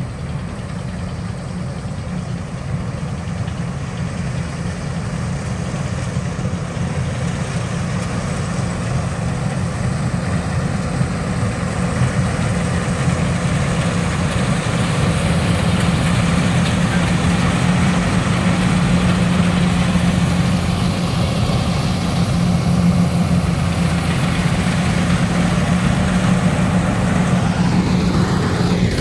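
Combine harvester's engine running steadily at work in a rice field, growing gradually louder over the stretch.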